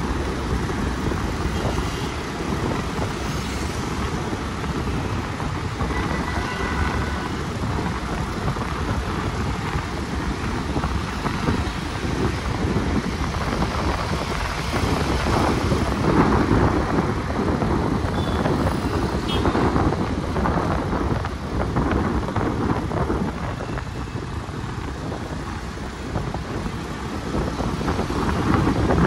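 Steady road noise of a car driving through city traffic: engine, tyres and traffic blend into one continuous rumble that swells a little about halfway through.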